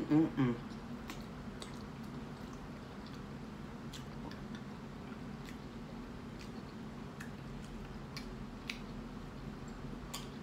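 Close-miked chewing of a mouthful of burrito: faint wet mouth clicks and smacks scattered through, over a steady low hum. A brief hummed vocal sound opens it.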